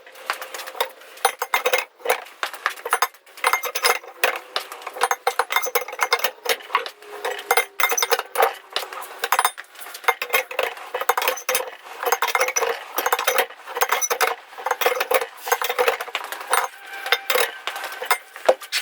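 Rapid, irregular metallic clinks and rattles with a faint ringing, from steel parts and tools being worked on a backhoe's hydraulic boom cylinder.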